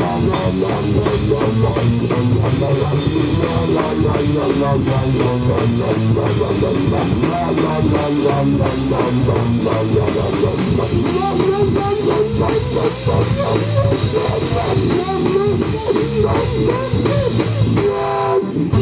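Funk-rock music played by a band on drum kit and guitar, with a steady beat and a lead line that bends and wavers in pitch.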